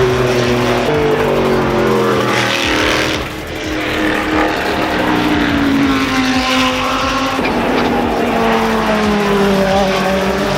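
Several race car engines running hard on the circuit, their pitch falling again and again as the cars pass and brake, with a brief lull about three seconds in.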